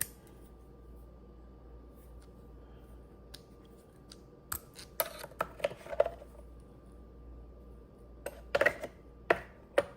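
Small hard clicks and taps of steel screwdriver bits and their plastic holder being handled, in two short clusters, one near the middle and one near the end.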